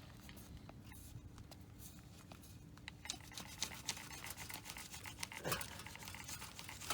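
Faint scraping and clicking of a spline roller tool pressing screen spline and fiberglass screen mesh into the groove of a screen door frame, with a louder scrape about five and a half seconds in.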